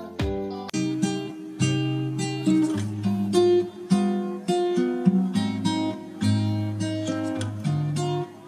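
Background music on acoustic guitar: plucked notes in a steady melodic line.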